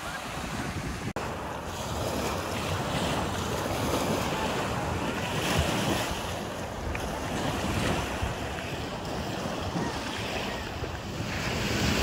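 Waves washing onto a shore in a steady wind, swelling and easing every few seconds, with wind rumbling on the microphone.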